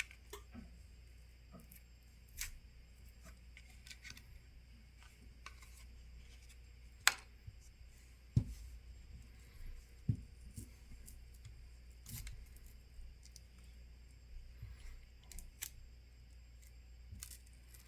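Faint scattered clicks and ticks of a pick prying a phone's glued plastic back cover loose, with a handful of sharper clicks spread through as the adhesive gives.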